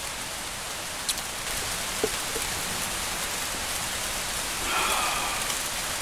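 Steady rushing hiss of a mountain stream flowing over rocks, even and unbroken, with a faint small tick about two seconds in.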